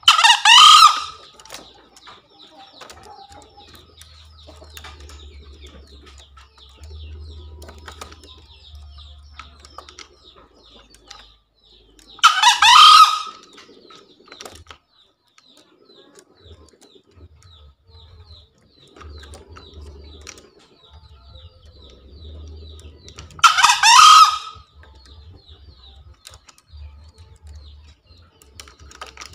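Green junglefowl crowing: three short crows, each about a second long and about eleven seconds apart.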